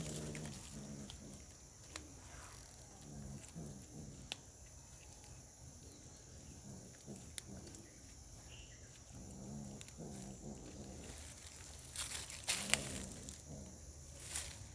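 Domestic cat growling low in its throat in several spells while holding its prey in its mouth, with a few faint sharp clicks in between.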